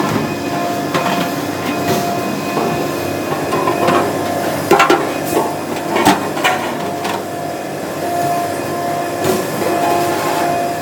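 Sheet-metal factory floor noise: a steady machinery hum with a handful of sharp metal clanks about halfway through, from the hydraulic press and clamping line.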